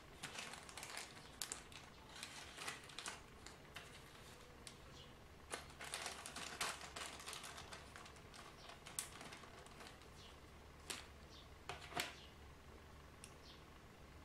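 Handling noise from a small clear plastic bag and small parts on a plastic tray: crinkling plastic with scattered light clicks and taps, and a few sharper clicks toward the end.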